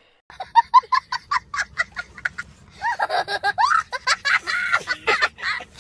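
A young child laughing hard, first in a quick string of short bursts, then in longer laughs from about halfway.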